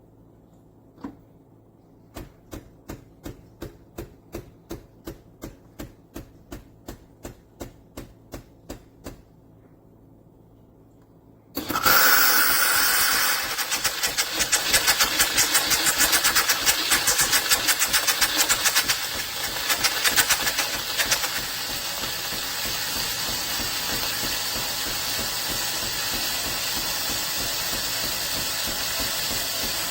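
Philips 3300 Series fully automatic espresso machine running: a steady run of clicks, about three a second, then a sudden start of loud hissing with a rapid pulse that runs on.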